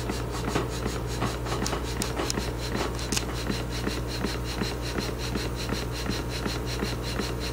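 Kennion Bros TINA model horizontal live steam engine running steadily, an even rhythm of short beats at about four a second. A slight knock is in its running, which the owner hopes will go away as the engine runs in.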